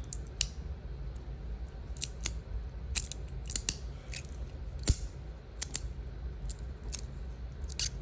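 Metal fidget slider clicking: sharp, irregular clicks as its magnetic plates are slid and snapped into place, over a steady low hum.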